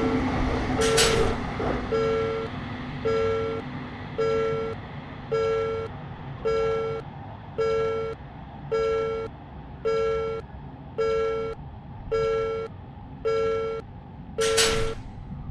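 Japanese level-crossing electronic warning bell dinging steadily, about one and a half strikes a second, while the rumble of a passing train fades away in the first second or so. A short hiss sounds twice, about a second in and near the end.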